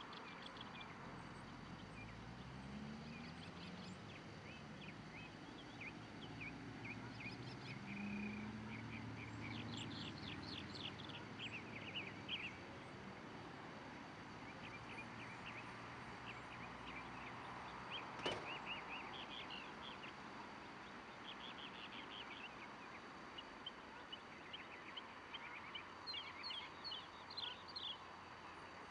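Small songbirds chirping and singing, faint, in short scattered phrases throughout. Under them a passing vehicle's low rumble comes and goes in the first dozen seconds, and a single sharp click sounds a little past the middle.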